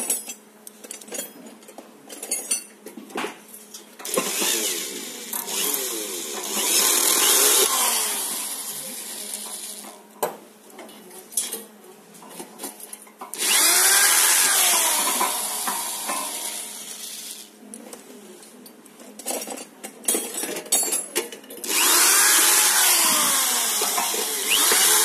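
Electric screwdriver running in three spells of a few seconds each, its motor pitch sliding as it drives screws into a floodlight's metal housing, with small clicks and knocks of handling in between.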